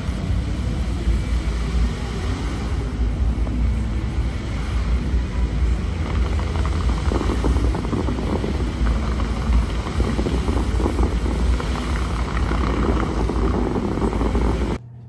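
Water jets of the Bellagio fountains shooting up and crashing back into the lake, a loud steady rushing rumble. It cuts off abruptly near the end.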